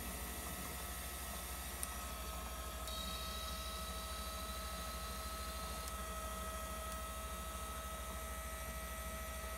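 Steady electrical hum with a few faint steady tones above it, and a faint high whine from about three seconds in to about six seconds in.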